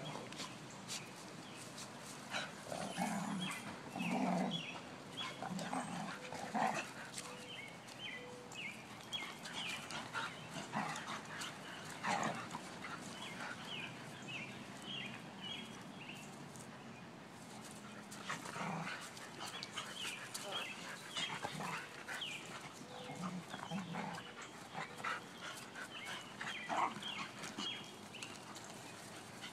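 Big dogs and a puppy play-fighting, growling and yelping in short bouts, with scuffling between them.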